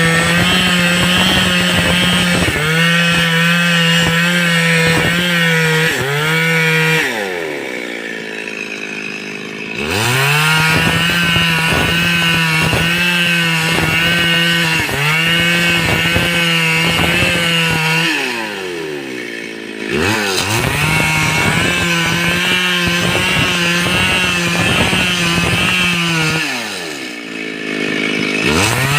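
Stihl MS382 two-stroke chainsaw held at full throttle while cutting teak. Three times the throttle is released, the revs fall away, and it climbs back to a steady high pitch.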